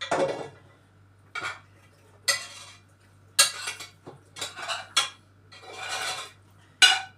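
Dishes, pots and cutlery clattering and knocking as food is put away in the kitchen: about seven separate bursts at irregular intervals. A faint steady low hum runs underneath.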